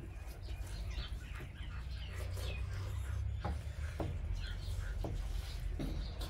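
Small birds chirping in short high notes, with a few sharp clicks and a steady low rumble underneath.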